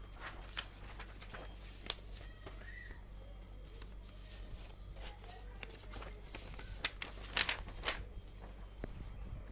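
Scattered light clicks and taps of small handling at a desk, with a cluster of louder clicks about seven and a half seconds in, over a low steady hum.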